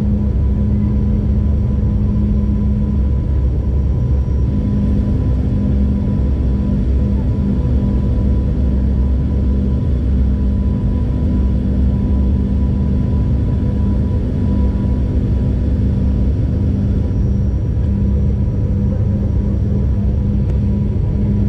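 Steady, loud drone of an ATR 72 turboprop's engines and propellers heard inside the cabin on descent: a deep rumble under a steady propeller hum. The hum's pitch shifts slightly about four seconds in and shifts back near the end.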